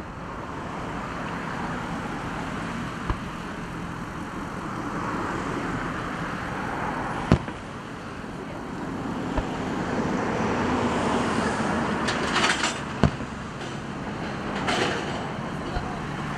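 Fireworks going off: single sharp bangs every few seconds, the loudest about seven seconds in, and two bursts of crackling stars late on, over steady background noise.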